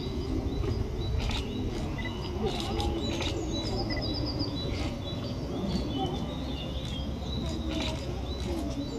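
Background murmur of people's voices, with small songbirds chirping over it and a short fast trill about four seconds in.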